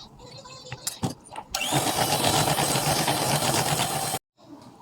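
A few knocks, then an electric kitchen mixer runs loud and steady for about two and a half seconds, blending the ice-cream mixture, and cuts off suddenly.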